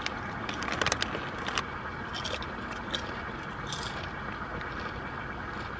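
Potato chips being crunched and the foil chip bag crinkling, sharp crackles that bunch up in the first second or two and then come only now and then. Underneath runs a steady low background rumble.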